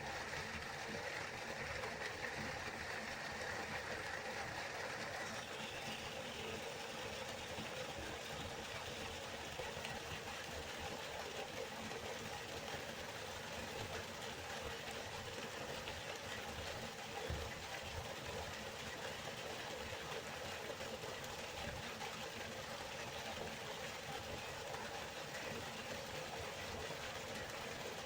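Steady rushing and babbling of a flowing river, an even wash of water noise whose texture shifts slightly about five seconds in.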